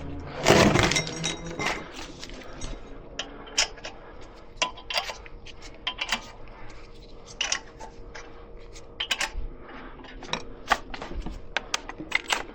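Scattered light metallic clinks and clicks of tools and metal parts being handled during a brake job, with a louder clatter about half a second in.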